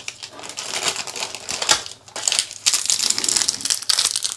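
Small clear plastic bag of PC case screws crinkling and crackling in the hands, with small metal clicks of the screws inside, in irregular bursts.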